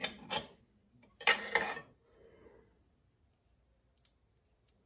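Metal parts of an NP207 transfer case being handled by hand: a few short clinks and a brief scrape in the first two seconds, then a couple of faint ticks near the end.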